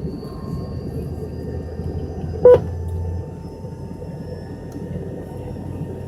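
Steady cabin drone inside an MD-83 airliner, broken about halfway through by one short, loud pitched bark over a brief swell of low rumble. This is typical of the MD-80's hydraulic power transfer unit, the 'barking dog', cycling during engine start or taxi.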